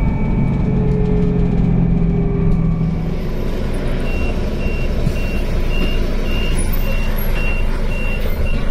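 City bus running, heard from inside the passenger cabin. From about four seconds in, a high electronic warning beep repeats about twice a second over the engine noise.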